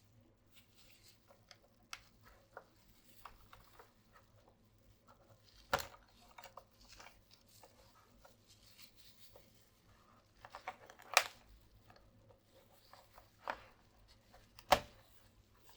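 Small plastic clicks and scrapes from hands working on a mechanical keyboard, with four sharp louder clicks: one about six seconds in and three in the last five seconds.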